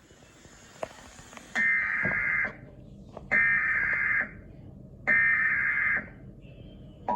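Emergency Alert System SAME header for an Emergency Action Notification: three bursts of screechy data tones, each just under a second long with short gaps between. The steady two-tone attention signal starts right at the end.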